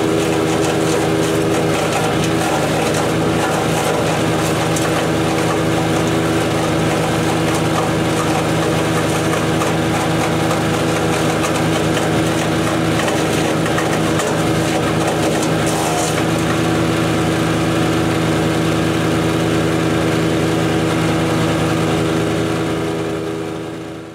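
DK2 Power OPC506 wood chipper running steadily at speed, its Kohler single-cylinder engine driving the chipper drum; it fades out near the end.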